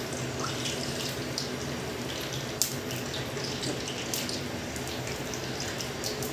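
Pakora batter frying in hot oil in a karahi: a steady sizzle with scattered crackles and pops.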